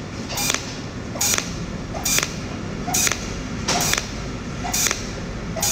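Cold welding machine firing pulsed spot welds from its tungsten torch onto a seam in 0.8 mm stainless steel tube as filler wire is added. Seven short, evenly spaced pulses a little under a second apart, each with a brief tone at its start, over a steady background hiss.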